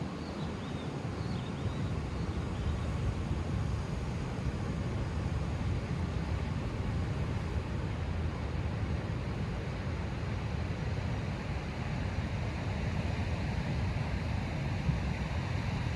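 Sea surf washing onto a sandy beach, with wind buffeting the microphone as a steady low rumble. The hiss of the wash swells a little in the last few seconds.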